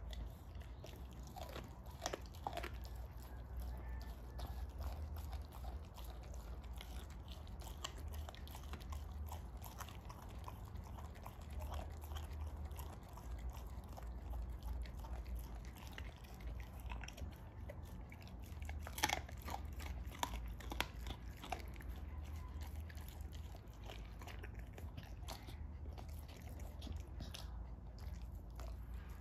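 American bulldog chewing and biting a chunk of raw meat, with wet smacks and crunches scattered irregularly and a louder run of bites about two-thirds of the way through. She is chewing the raw food rather than only licking it.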